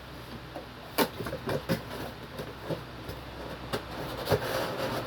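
Cardboard box being handled: irregular light knocks and taps, with a short rustle of cardboard near the end.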